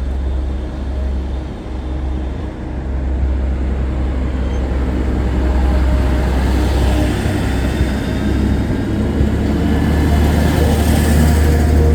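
Train running by, its rolling noise building toward the end over a heavy, steady low rumble.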